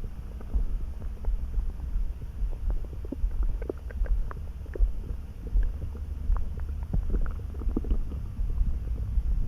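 Human stomach gurgling: a low steady rumble under many small pops and bubbling clicks, which come thicker from about three and a half seconds in.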